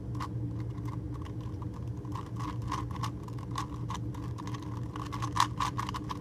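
Rubik's Cube being turned quickly, its plastic layers clicking and clacking in quick, irregular runs of several clicks a second, over a steady low hum.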